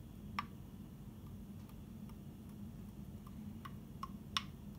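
Several short, light clicks of kitchenware being handled, with the loudest near the end, over a steady low hum.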